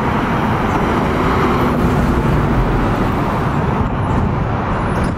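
Steady noise of road traffic and running vehicle engines.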